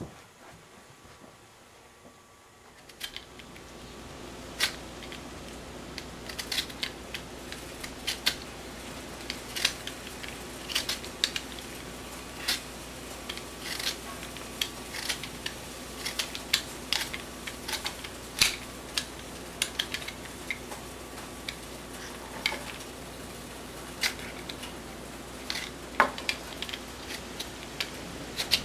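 Potato being peeled by hand with a small blade: irregular sharp scrapes and clicks, a few a second, over a steady low hum. The first few seconds are quiet room tone, before the peeling starts.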